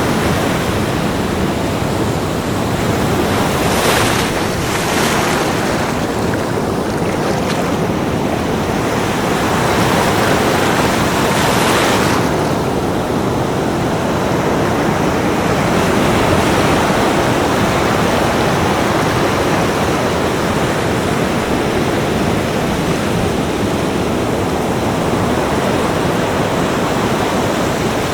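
Ocean surf breaking on a beach: a steady wash of noise, with louder hissing surges about four, five and twelve seconds in as waves break and run up.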